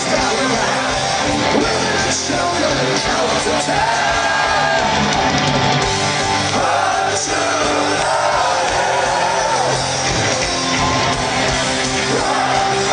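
Live rock band playing loud with a singer, heard from inside the concert crowd, with shouts from the audience.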